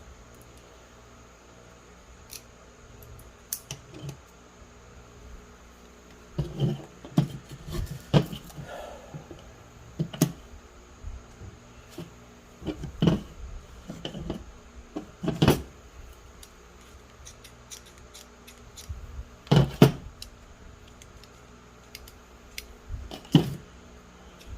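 Irregular clicks and knocks of small metal parts and hand tools being handled while a ratchet automatic shifter is worked on, coming in scattered clusters with the loudest knocks about six seconds in, in the middle, and near the end.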